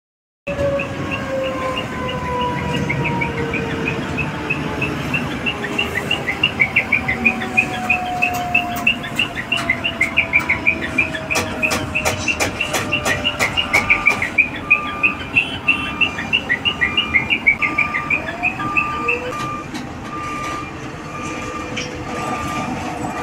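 Industrial yard ambience: a steady machinery rumble with a slowly falling whine, rapid repeated chirping through the middle, and a steady on-off beeping over the last third.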